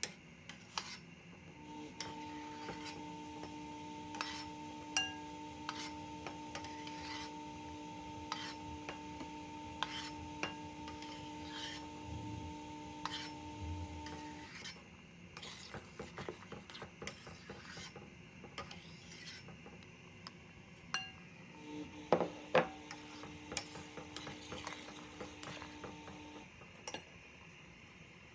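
Metal spoon scraping and clinking against a stainless steel pot and a glass bowl while foam is skimmed off boiling split peas, in many small, irregular clicks. A steady hum sounds from about two seconds in until about halfway, and again for a few seconds near the end.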